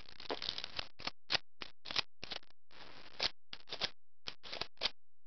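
Plastic toy sonic screwdriver parts being handled and pushed together: a string of irregular short clicks and scrapes of plastic.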